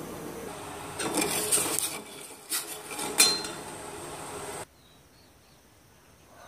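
A metal spoon scraping and clinking against a stainless steel pot of white granules, with several sharp clinks, over a steady hum. The sound cuts off suddenly about three-quarters of the way through.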